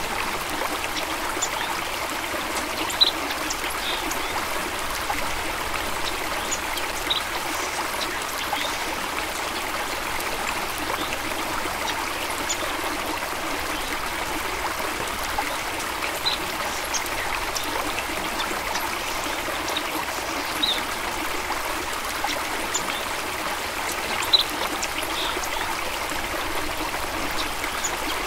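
Water stream flowing and trickling steadily, with scattered brief high plinks of water.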